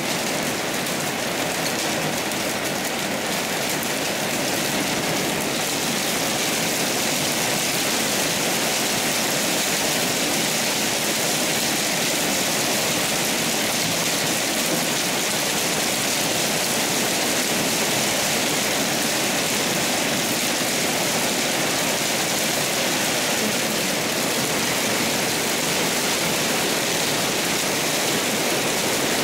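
Heavy rain and strong wind of a storm: a steady, loud rushing that does not let up.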